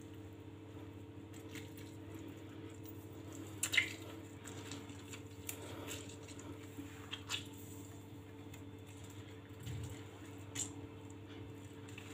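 Half a lemon being squeezed by hand, with faint wet squelching and a few small, sharp clicks spread through, over a low steady hum.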